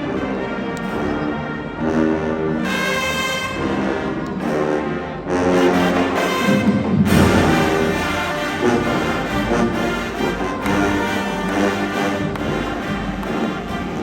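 High school marching band's brass section playing held chords, swelling louder and fuller about five seconds in.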